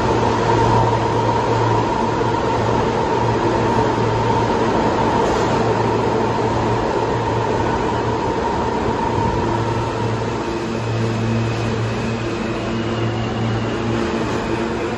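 R160-series New York City subway train standing at the platform, its equipment humming steadily, then pulling out: a rising whine from its traction motors comes in during the last few seconds.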